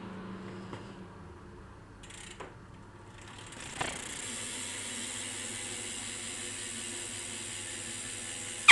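Haro BMX's rear cassette hub freewheeling: the pawls give a fast ticking buzz, pretty loud, that sets in with a knock about four seconds in and holds steady. A few loose clicks come before it, and it ends with a sharp loud sound.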